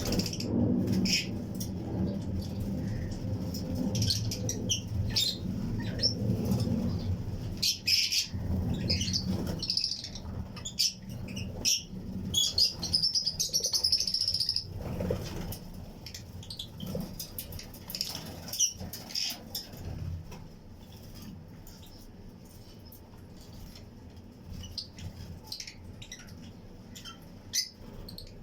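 A colony of Fischer's and lutino lovebirds chirping, many short high chirps overlapping, thinning out after about twenty seconds. A low rumble runs under the first ten seconds or so.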